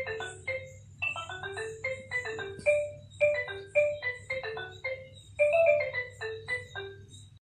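A xylophone-like electronic tune of quick runs of short notes, repeated several times, played by a Peppa Pig Alphaphonics Camper Van learning toy.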